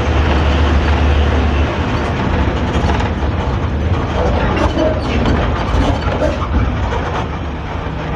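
Interior of a moving Hino AK3-HR bus: the diesel engine and exhaust drone steadily. The deep low hum eases about a second and a half in, over constant road noise and body rattle.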